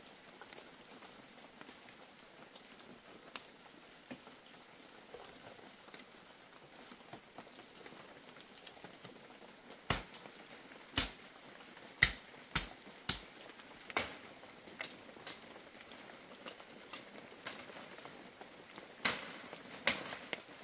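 A run of sharp knocks, about six in four seconds starting about halfway through, then two more near the end, over faint steady background noise.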